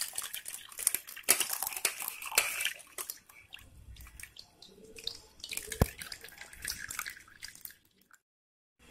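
Liquid with mango peels poured from a pan through a steel mesh strainer into a steel bowl, splashing and dripping, with scattered clicks and knocks. It stops about eight seconds in.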